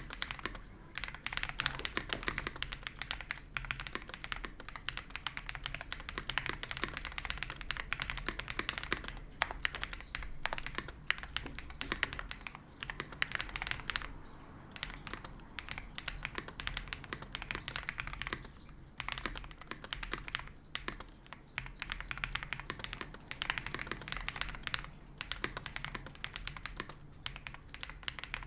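Continuous fast typing on an Ajazz AK820 Pro mechanical keyboard with Gift switches, a dense run of keystroke clicks with a few brief lulls.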